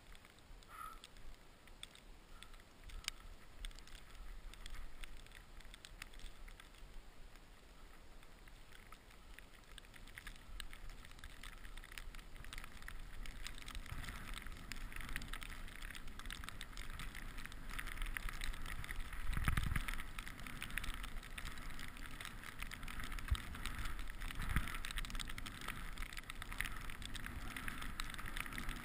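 Skis hissing through deep powder snow, with wind on the microphone, getting louder as speed builds in the second half, and a few low thumps.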